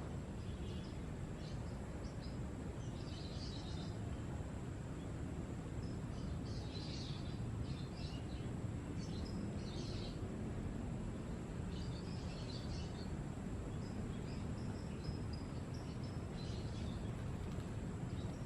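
Wild birds chirping in short scattered bouts, over a steady high insect whine and a low outdoor rumble.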